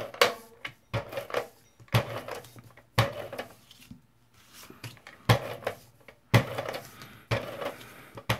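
Scotch Advanced Tape Glider adhesive gun being run along paper mats, a series of sharp clacks about once a second with a short pause in the middle.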